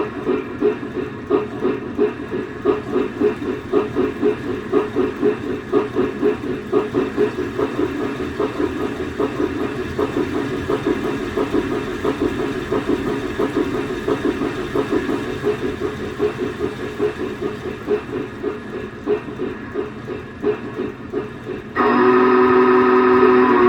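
Lionel PRR T1 duplex model's RailSounds 4 steam sound effects: a rapid, steady exhaust chuff of a running steam locomotive. Near the end a loud multi-tone steam whistle sounds.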